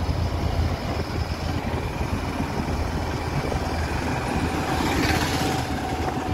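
Motorcycle engine running steadily while riding along a road, a low drone under road and wind noise, with a brief swell of rushing noise about five seconds in.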